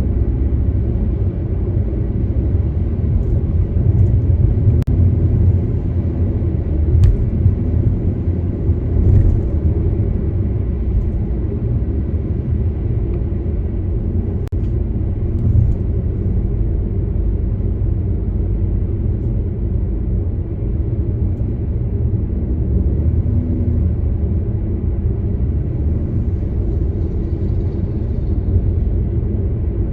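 Car driving along at steady speed: a constant low rumble of road and engine noise, with a few faint clicks.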